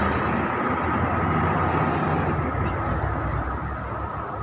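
Loaded heavy truck's engine labouring uphill as it passes, with road noise and a steady high whine, slowly fading as it moves away.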